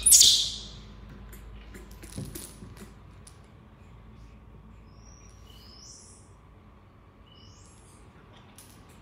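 A brief, loud, high-pitched squeal or hiss at the start, then quiet handling sounds: light taps and knocks as a baby monkey crawls on a wooden tabletop and handles a plush toy. Two faint high chirps come in the second half.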